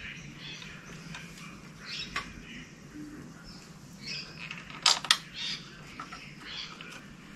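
Hand tools and bolts being handled during reassembly of a motorcycle footpeg mounting plate: light taps and clinks, with two sharp metal clicks close together about five seconds in.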